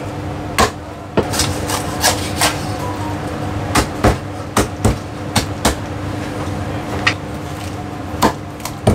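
Heavy Chinese cleaver chopping a whole roast goose on a thick wooden chopping block: about fifteen sharp chops at an uneven pace, some in quick pairs, with one of the loudest near the end.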